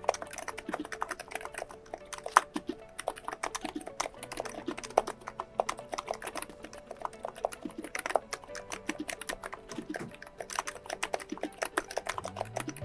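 Fast typing on a COX Endeavour tenkeyless keyboard with 35 g electrostatic-capacitive (contactless) switches, a dense, irregular run of keystroke clacks. Soft background music plays underneath.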